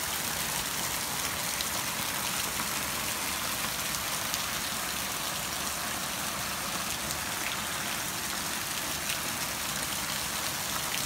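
Steady rain falling on a dome tent and the grass around it: an even hiss with scattered drop ticks.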